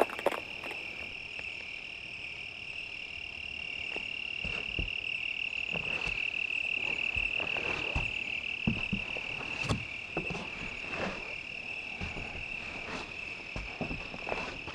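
Insects droning in the woods: one steady high-pitched tone with no break, with scattered faint clicks and crackles from about four seconds in.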